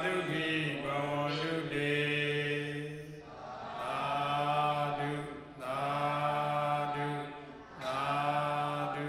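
Buddhist monks chanting together on a steady held note, in four long phrases with short breaks between them.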